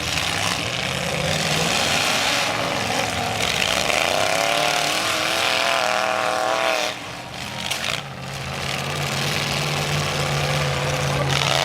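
Engines of demolition derby vehicles running and revving, one rising and falling in pitch several times in the middle, then settling into a steady drone after a brief lull about seven seconds in.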